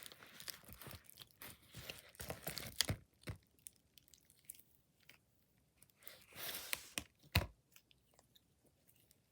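Thick slime being squished and kneaded by hand, with faint sticky crackles and pops, dense for the first few seconds, then scattered clicks and two short squishes a little past halfway.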